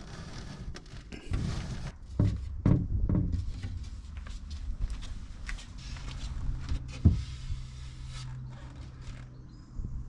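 Irregular knocks, thunks and small rattles of hand work with panels and tools inside a van, the loudest thunks in the first few seconds. A low steady hum starts about six seconds in.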